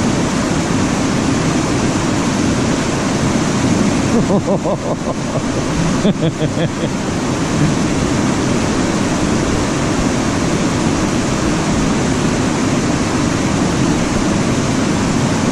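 White water pouring over a river weir and churning in the stopper below, a loud steady rush.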